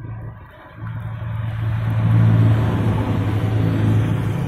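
A red angkot minibus driving past close by on the road, its engine humming steadily over tyre noise, getting louder to its loudest a little after two seconds in as it passes, with more cars coming up behind it.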